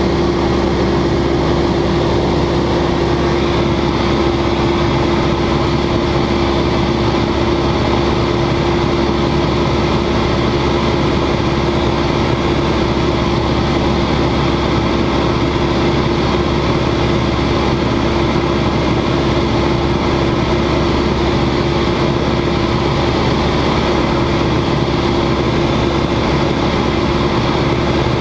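Single-engine propeller aircraft in flight, heard from inside the cockpit: the engine and propeller drone steadily with a strong held hum, over a haze of airflow noise, without change in power.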